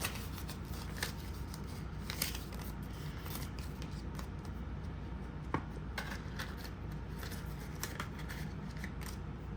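Paper banknotes and cash envelopes rustling as they are handled and sorted, with scattered light clicks and crinkles over a steady low background hum.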